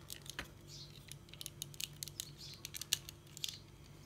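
Irregular small plastic clicks and taps as the jointed parts of a Transformers Titan Return Deluxe Perceptor figure are handled, rotated and pegged into place, with one sharper click near the end.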